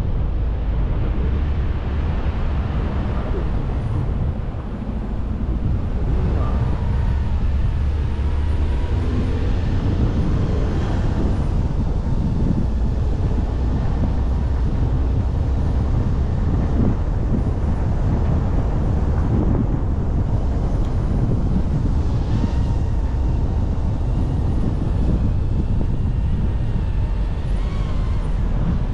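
Steady low rumble of a moving vehicle, with a faint thin whine that comes and goes.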